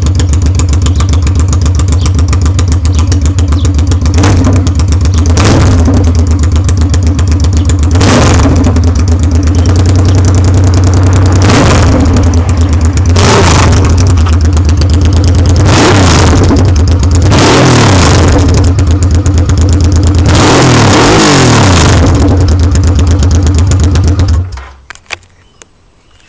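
Straight-piped Honda XRV750 Africa Twin V-twin engine idling loudly and being blipped repeatedly, the revs rising and falling about eight times. The engine is shut off near the end.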